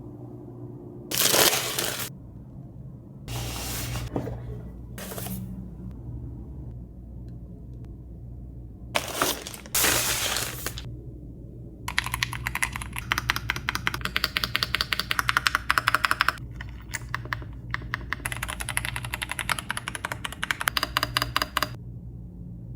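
Keychron Q6 HE keyboard, with Hall-effect magnetic switches, being typed on: dense runs of quick keystroke clacks start about halfway through, thin out briefly, then pick up again. Earlier, a few short noisy sounds of about a second each stand apart from one another, over a low steady hum.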